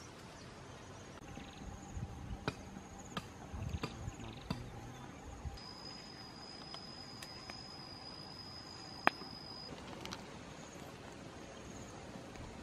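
Faint outdoor ambience of insects chirping, with a steady high insect whine for about four seconds in the middle. Scattered sharp clicks and snaps, the loudest about nine seconds in.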